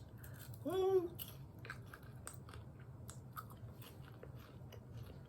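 A person chewing crunchy flavoured popcorn: faint, irregular small crunches, after a short hummed 'mm' about a second in.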